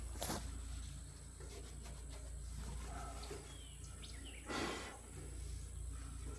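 Faint outdoor ambience with a low steady rumble and a few faint bird chirps, broken by two brief rustling or scuffing noises, the louder one near the end.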